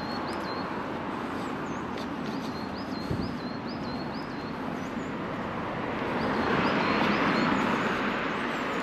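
A small songbird singing phrases of five or six short, high, rising notes, repeated several times. Beneath it runs a steady rushing background noise that swells between about six and eight seconds in.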